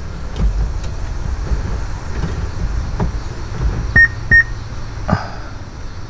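Blaupunkt in-dash six-disc CD changer giving two short high beeps about four seconds in, as it readies to take the next disc. A few light clicks sound around them, and a knock follows about a second later, over a low steady rumble.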